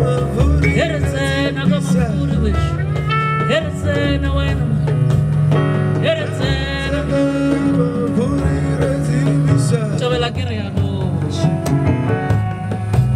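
Live band playing jazz-tinged music: a steady low bass line under voices and melodic instruments, with some singing.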